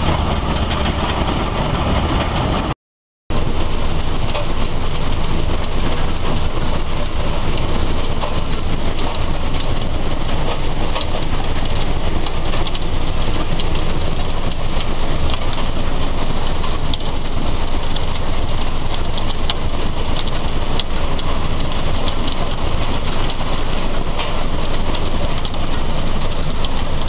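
Svedala mobile rock crusher running at close range, its screen and conveyor carrying crushed stone with a steady, dense rattle. The sound cuts out briefly about three seconds in.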